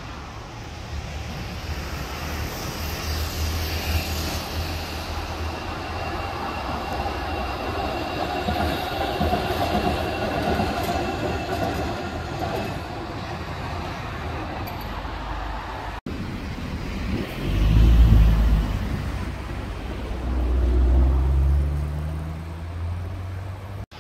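Wuppertal Schwebebahn suspension railway car running along its overhead steel track: a rumble with a thin high whine, swelling and then fading. After a cut about two-thirds of the way in, a louder, deeper rumble swells twice.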